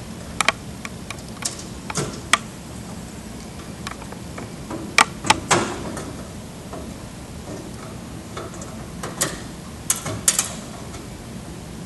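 Scattered clicks and light knocks from a Daktronics multi-line controller (MLC) board being handled and worked off its back panel in a metal enclosure. There are a few near the start, two around the middle and a small cluster near the end.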